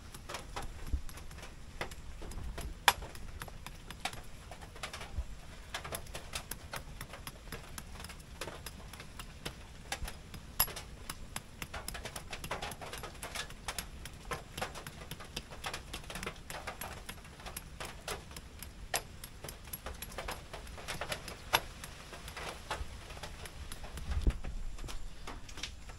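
Small wood fire crackling and popping in irregular sharp clicks, with a couple of low thumps, about a second in and near the end.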